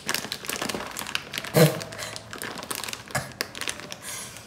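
Plastic food packet crinkling and rustling as it is handled and pulled at, with one brief louder sound about one and a half seconds in.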